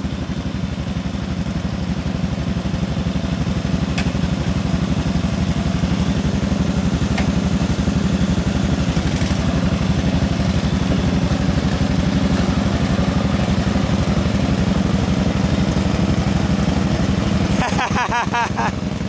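Small garden tractor engine running steadily at a constant speed, with an even pulsing beat.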